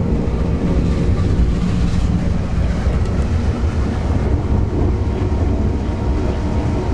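Narrow-gauge railway carriage in motion, heard from inside the coach: a steady, low rumble of wheels and running gear on the track.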